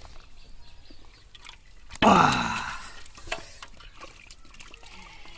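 Muddy water poured from a scoop into a plastic basin of live catfish: dripping and trickling, with one sudden loud slosh about two seconds in.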